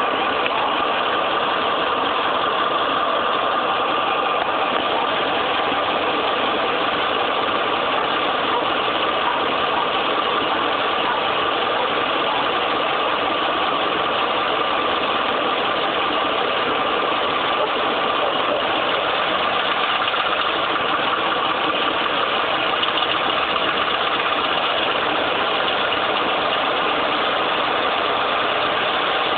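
Ford 5.4-litre three-valve V8 running steadily, with the ticking, diesel-like clatter its owner is chasing. He suspects a faulty VCT solenoid or cam phaser.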